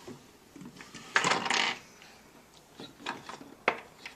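Wooden toy train-set pieces clattering on a play table: a loud rattling scrape about a second in, then a few light clicks.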